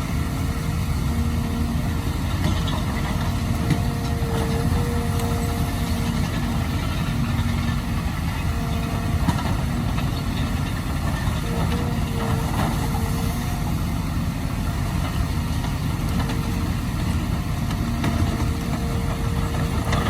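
Excavator's diesel engine running steadily, with a pitched whine that comes and goes every second or two as the machine works.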